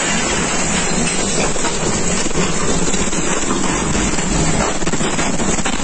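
Tornado wind with driving rain, a loud, steady rushing noise heard from indoors through a window.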